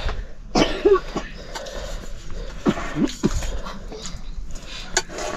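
An animal's short cries, a few brief calls that rise and fall in pitch, about half a second in and again around three seconds in, over low background noise.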